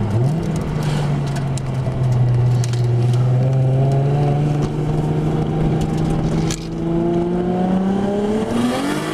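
Turbocharged Nissan Skyline straight-six heard from inside the car under way, its pitch rising slowly as it accelerates and then climbing faster near the end.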